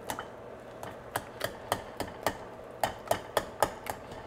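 Utensil knocking and scraping against a metal pot about three times a second, unevenly, while boiled potatoes are broken up for mashing; each knock rings briefly.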